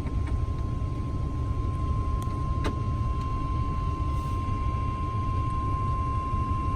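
NOAA Weather Radio's 1050 Hz warning alarm tone, one steady unbroken tone sounding ahead of a new warning broadcast, over a constant hiss and rumble of radio reception noise. A single brief click comes about two and a half seconds in.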